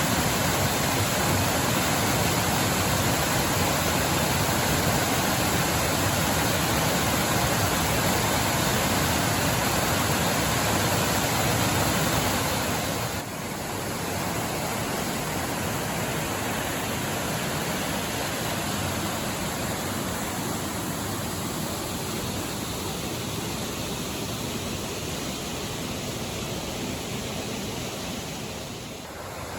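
Waterfall's steady rush of falling water. About halfway through it drops suddenly to a quieter, duller rush.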